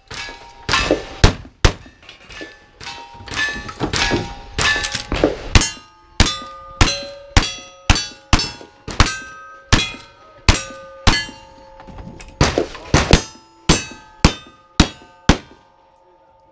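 A fast string of gunshots from a rifle and then a revolver, each answered by the clang and ring of a struck steel target. The shots come roughly two a second and stop about a second before the end.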